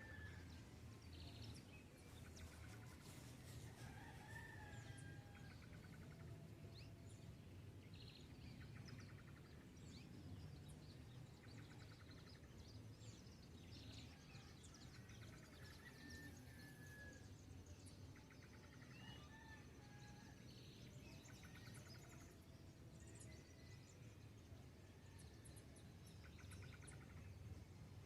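Faint dawn chorus of birds: scattered short chirps, brief gliding whistles and rapid trills, over a low steady rumble.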